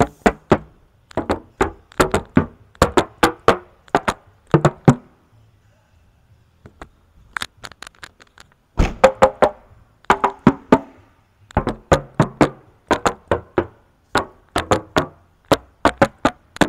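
Knuckles rapping on the steel body panels of a 2007 Honda CR-V, quick runs of knocks with a brief ring after each, with a pause of a few seconds in the middle. It is a check that the panels are bare original metal without body filler, and the body is judged to be solid metal.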